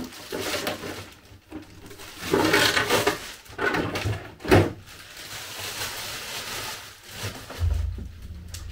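Handling noises from unpacking a 1/10 RC car: irregular rustling of packaging with a few sharp knocks and bumps, the loudest knock about halfway through.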